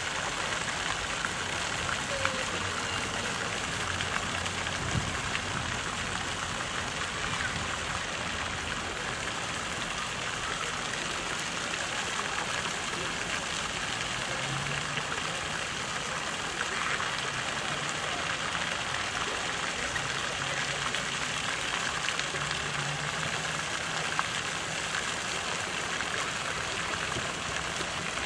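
Steady hiss of running water, even and unbroken throughout.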